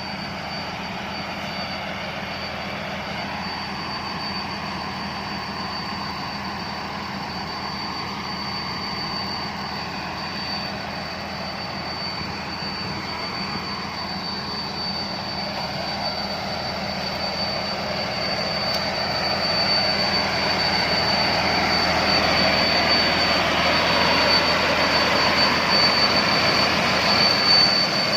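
Rice combine harvester running, a steady engine noise with a constant high whine over it, growing louder about two-thirds of the way through.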